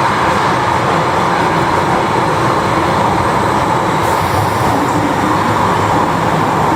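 London Underground 1973 Stock tube train running through the station, a loud steady rumble of wheels and motors with a brief high hiss about four seconds in.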